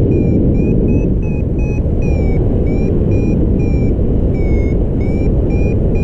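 Wind rushing over the microphone in flight, with a paragliding variometer beeping its climb tone about two to three times a second, the pitch shifting slightly from beep to beep and one longer, falling beep about four seconds in. The beeping means the glider is climbing in lift.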